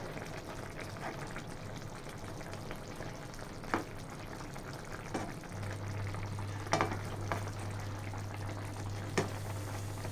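Eggplant and prawns simmering in coconut milk in a pot, a steady sizzling hiss, with a few light clicks of a utensil against the pot. A low steady hum comes in about halfway through.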